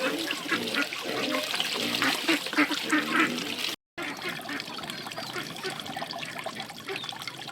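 Repeated short animal calls over trickling water for the first few seconds, cut off by a brief dropout about four seconds in; after it, fainter calls and rustle.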